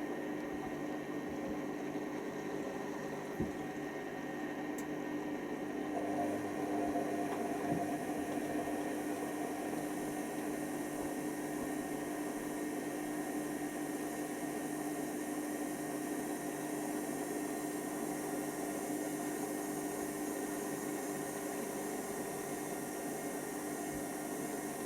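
Hoover Nextra HNWL7146 washer dryer running mid-cycle: a steady mechanical hum with a single light knock about three seconds in.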